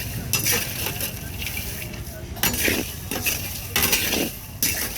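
Metal utensil scraping and clinking in a metal pan as puffed-rice bhuja is stirred and tossed, in irregular sharp strokes over a steady low background rumble.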